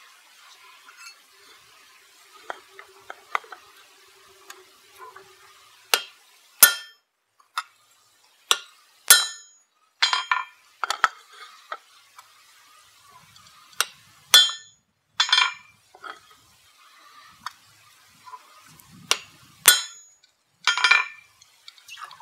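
Hammer blows on hot steel while opening the eye of a forged axe head: single sharp metallic strikes with a ringing tone, about one a second, with short pauses between runs of blows.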